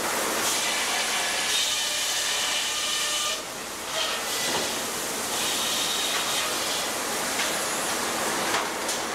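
Sawmill machinery running: a steady noisy rush with a high whine from the saws that comes and goes, and a short lull about three and a half seconds in.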